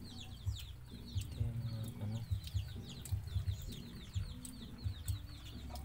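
Chickens clucking, over a rapid, continuous run of short, high, falling chirps.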